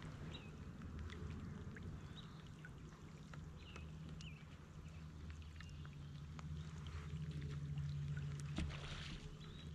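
Light rain pattering, scattered drops ticking on the kayak, jacket and water, over a low steady rumble.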